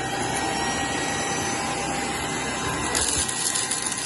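Bork V800 cordless stick vacuum cleaner running steadily, a whooshing hum with a thin whine. About three seconds in a brighter, crackling hiss joins it.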